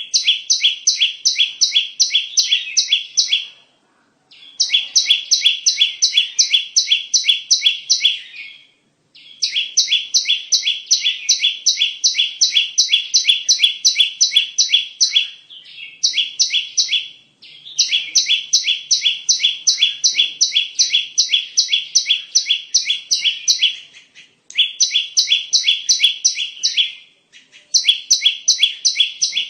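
Prinia (perenjak) song used as a bird-trapping lure: fast runs of sharp, evenly repeated high notes, about four a second, each run lasting three to four seconds with short pauses between.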